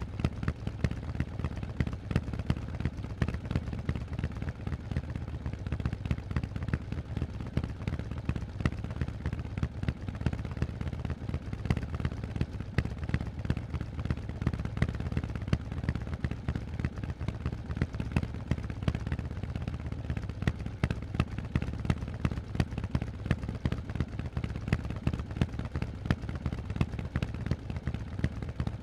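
Harley-Davidson Forty-Eight's air-cooled 1200 cc V-twin through Vance & Hines aftermarket exhausts, running at a steady engine speed. It makes a rapid, even train of deep exhaust pulses with no revving up or down.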